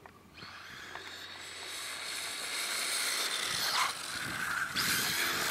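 Small electric RC rally car running on concrete: a hiss of motor and tyres that grows louder as it drives, with a whine that falls in pitch about four seconds in and the loudest stretch near the end.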